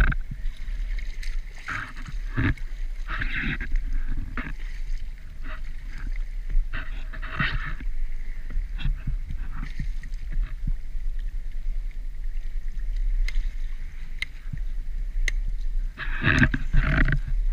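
Sea water sloshing and gurgling around a camera held at the surface, with irregular splashes over a steady low rumble and a cluster of splashes near the end.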